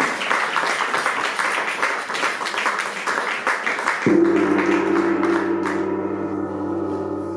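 Audience applauding; about four seconds in a large hanging gong is struck once and rings on with a steady, slowly fading hum.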